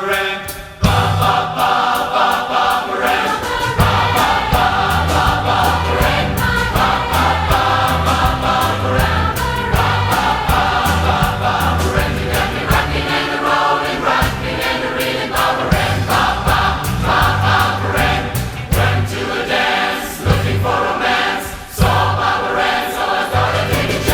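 Large combined choir of about 400 voices singing a 1960s California pop medley in harmony, over a steady beat and bass line.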